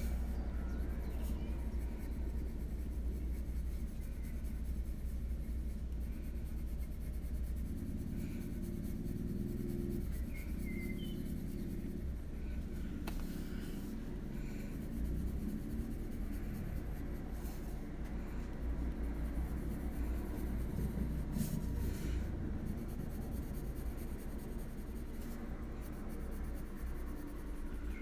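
Faber-Castell Polychromos coloured pencil shading on a colouring-book page: a continuous scratching and rubbing of the pencil lead on paper.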